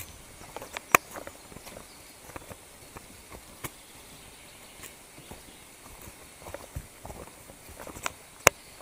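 Footsteps on a leaf-littered forest trail, irregular and uneven, with a scattering of small clicks and two sharp, loud clicks, one about a second in and one near the end.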